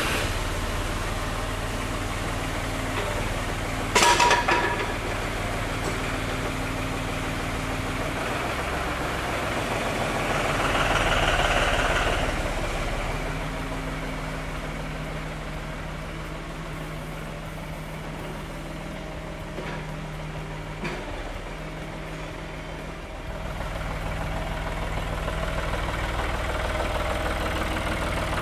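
John Deere 5203 tractor's three-cylinder diesel engine running at idle just after starting. There is a sharp metallic clank about four seconds in and a louder, hissing rise for a couple of seconds around the middle.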